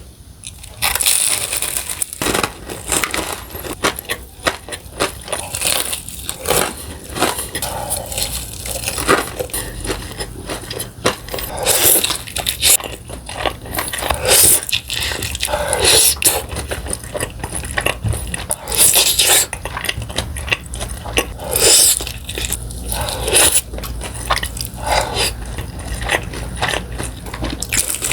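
Crispy fried chicken being bitten and chewed close to the microphone: a steady run of crackling crunches, one every second or so.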